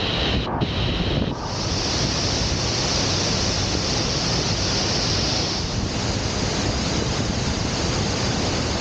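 Steady rushing of running water, a continuous hiss that turns brighter about a second and a half in.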